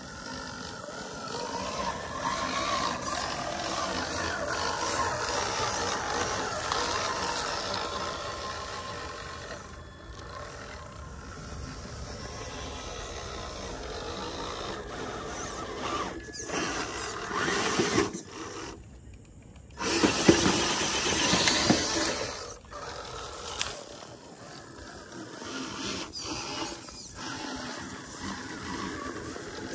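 The panel truck's motor working along a trail, its whine wavering up and down in pitch with the throttle. It dips briefly about nineteen seconds in, then comes back louder for a couple of seconds.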